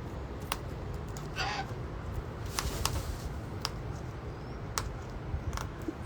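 Cockatoos feeding on nuts: scattered sharp clicks and taps, with one short, rough squawk about a second and a half in, over a steady low background rumble.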